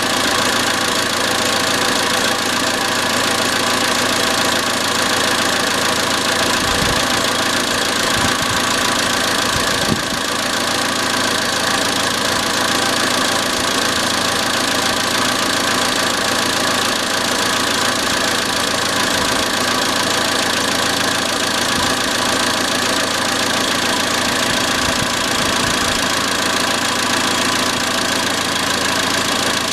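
Iran Khodro Samand's 1.6-litre 16-valve TU5JP4 four-cylinder engine idling steadily with a metallic knock, whose cause is the open question; the hydraulic lifters are one suspect.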